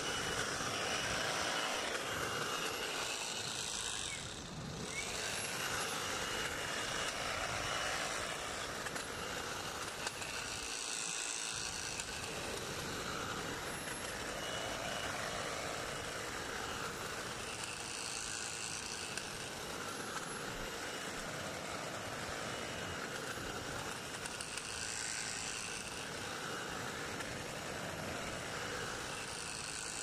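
Battery-powered EGO Power+ Multi-Tool with its hedge trimmer attachment running, its reciprocating blades cutting through a conifer hedge, steady apart from a brief dip about four and a half seconds in.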